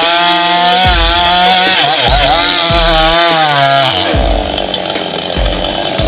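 Two-stroke chainsaw cutting through the trunk of a dead coconut palm, its engine pitch wavering under load. About four seconds in, the steady engine note gives way to a rougher, noisier sound.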